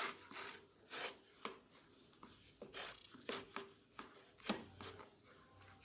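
Ghee being rubbed around the inside of a plastic container: a string of faint, short, irregular rubbing and scraping strokes.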